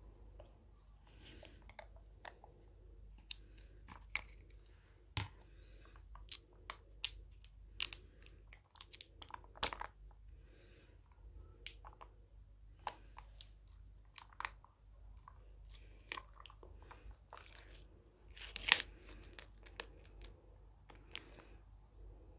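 Close-up eating sounds: chewing cooked shrimp, with irregular sharp clicks and crackles as fingers pull at the pieces, one louder crackle near the end.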